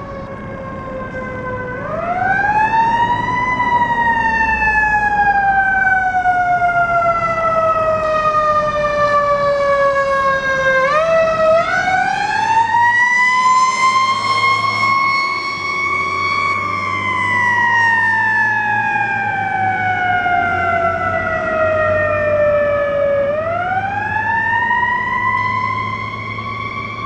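Fire engine siren wailing. Three times it rises quickly in pitch, then falls slowly over several seconds: about two seconds in, near the middle, and near the end. A low engine rumble runs underneath.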